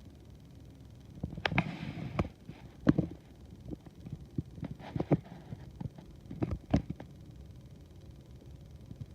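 Irregular sharp clicks and knocks of plastic K'NEX pieces being handled, over a faint low hum.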